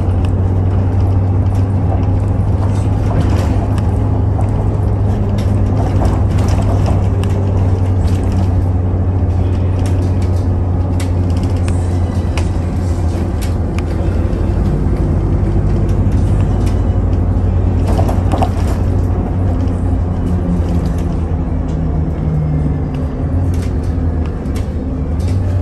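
Train running: a loud steady low hum with a few steady tones above it and a motor tone that shifts in pitch in the second half, with scattered clicks and rattles.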